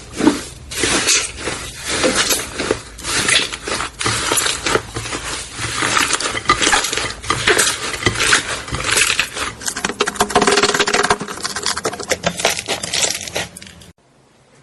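Slime being squeezed and kneaded: a dense run of wet crackling and clicking pops, which cuts off suddenly near the end.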